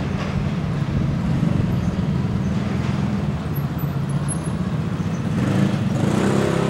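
An engine running steadily with a low hum, getting louder near the end as higher tones join in.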